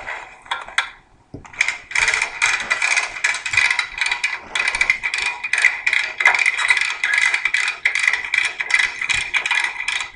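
Ratchet on an Anderson steel vending-machine dolly being cranked by hand, tightening its strap around the machine: a short burst of rapid pawl clicks, a brief pause, then a long steady run of rapid clicking.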